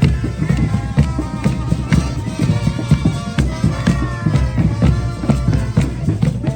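Live brass band music with a steady drum beat and held wind-instrument notes.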